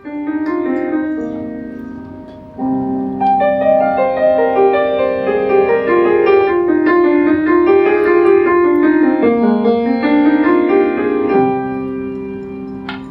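Piano playing a slow song introduction. A chord rings and fades, then a flowing melody runs over sustained chords, settling onto a held chord that dies away near the end.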